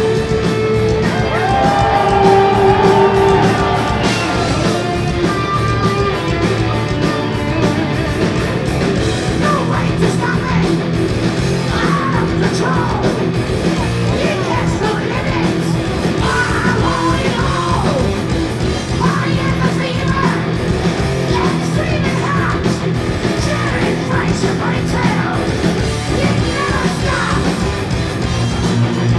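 Heavy metal band playing live at full volume: distorted electric guitars, bass and drums, with a lead singer shouting and singing over them, recorded from in the crowd.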